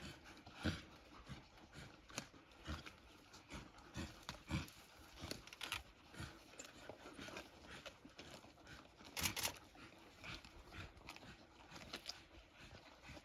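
African wild dogs at a buffalo kill: faint, irregular short sharp sounds, one or two a second, with a louder pair about nine seconds in.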